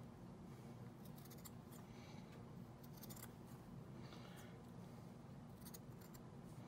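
Large scissors snipping through hot-glued felt pieces, a string of faint cuts about once a second over a low steady hum.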